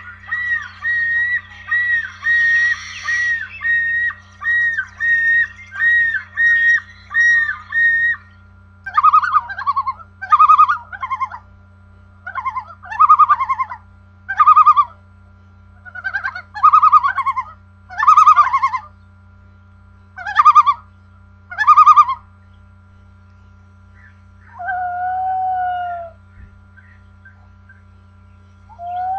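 Phone ringtones played one after another. First a fast repeating electronic beep pattern, about two notes a second, that stops about eight seconds in. Then a ringtone of loud bird-like chirps, one every second or so, and two short falling tones near the end, over a steady low electrical hum.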